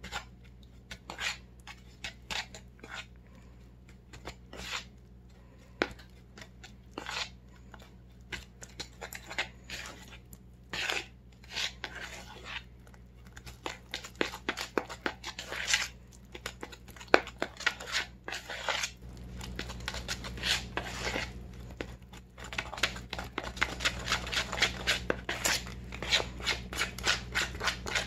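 Metal spoon stirring and scraping egg-and-flour batter in a plastic mixing bowl, clinking against the sides. The strokes start irregular and become quicker and steadier, several a second, in the last third as the batter is beaten together.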